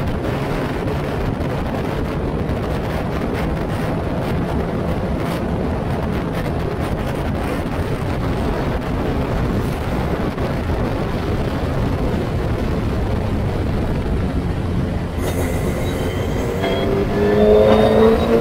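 Wind howling and buffeting over the onboard microphone of a Formula Ford single-seater at speed, with the engine hardly heard beneath it. About two seconds before the end the engine note comes through and rises in pitch as the car accelerates.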